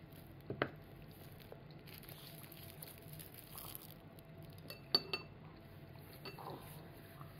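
A few light clinks of ceramic tableware: one sharp clink about half a second in, and a ringing double clink about five seconds in.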